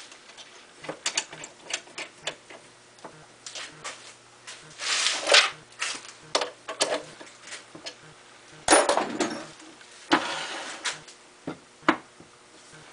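Scattered metal clicks, taps and short scrapes of tooling being handled: a center drill fitted into a tailstock drill chuck and the tailstock slid along the lathe bed, with a louder knock and scrape about nine seconds in. A steady low hum runs beneath.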